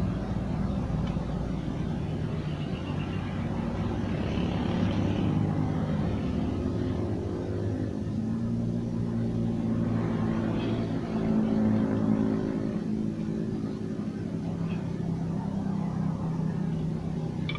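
An engine running steadily, a low even drone whose pitch shifts up a little about halfway through.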